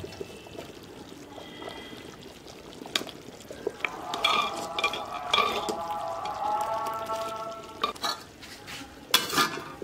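A spoon stirring thick kadhi in a clay pot and knocking against the pot several times, with a louder clatter near the end.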